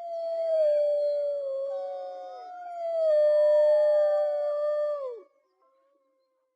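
Wolves howling together: long, steady howls that slide slowly down in pitch, with several voices overlapping. The howling ends in a falling drop about five seconds in.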